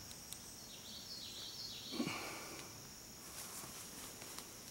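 Faint woodland ambience: a steady high insect drone throughout, with a bird calling a few short falling notes in the first two seconds. A brief low sound stands out about two seconds in.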